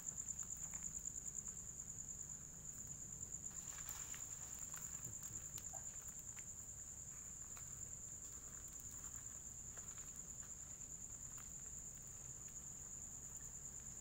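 Night insect, most likely a cricket, trilling in one steady, high, finely pulsing note, with faint scattered rustles and footsteps through vegetation.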